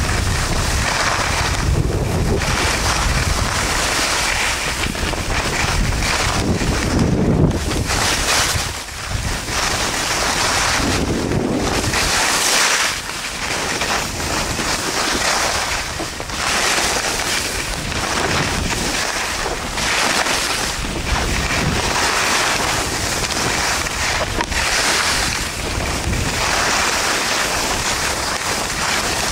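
Wind rushing and buffeting on the camera microphone during a ski run downhill, mixed with the hiss of skis sliding over packed snow. The rush is steady, with a heavy low rumble in the first few seconds, and it swells and dips several times.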